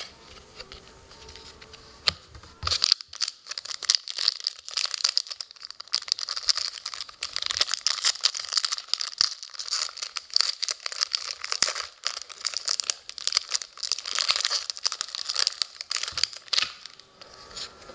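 Foil trading-card pack wrapper being torn open and crinkled, a dense crackling that starts about three seconds in and stops near the end, with the cards sliding out of it.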